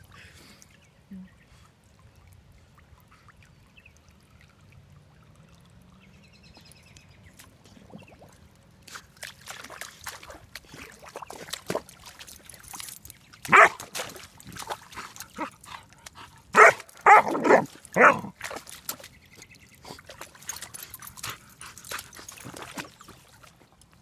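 German Shepherd puppy "bubble barking": barking with its muzzle in pond water, so the barks come out with splashing and bubbling. Splashing starts about a third of the way in. There is one loud bark a little past halfway, then four more in quick succession a few seconds later.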